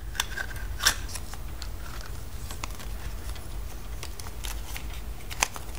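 Light clicks and faint rustling of hands handling a small plastic toy figure and its surprise-egg packaging, with a sharper click about a second in and another near the end, over a low steady hum.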